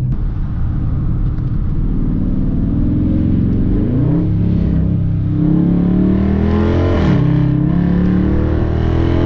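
Dodge Charger R/T's 5.7 Hemi V8 exhaust, heard from inside the cabin, accelerating hard with the active exhaust valve held open in track mode. The pitch climbs, drops back at an upshift about four seconds in, climbs again, and drops at a second upshift about seven seconds in.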